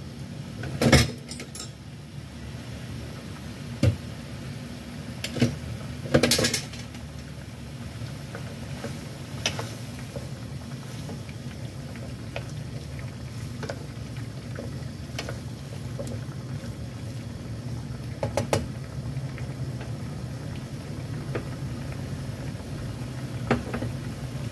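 Oyster-sauce broth with carrot and wood ear mushroom bubbling in a wok as it comes to the boil, over a steady low rumble. A wooden spatula knocks against the pan several times as it stirs, the loudest clacks about a second in and around six seconds in.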